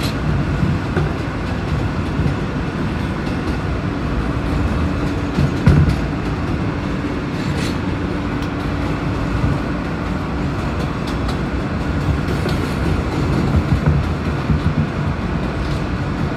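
Ride noise inside an R160A subway car running along the track: a steady rumble of wheels on rails with occasional sharp clicks. A steady low hum comes in about four seconds in.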